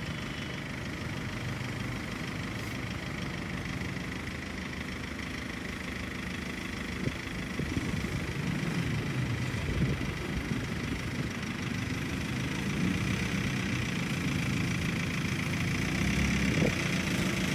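Motor vehicle engine running steadily, a low hum that grows louder near the end.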